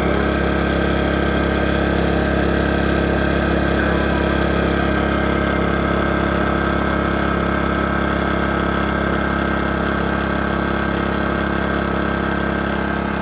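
Steady mechanical hum of a Pulsar PG2000iS inverter generator running with an RV rooftop air conditioner's fan on. The AC compressor has not yet started.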